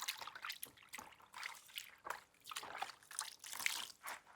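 Water trickling and sloshing in short, irregular bursts.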